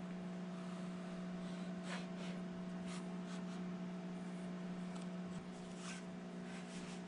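A few light scrapes and clicks of metal parts being slid by hand onto a horizontal milling machine's arbor: the bearing spacer and the internal overarm support going on. A steady low hum runs underneath.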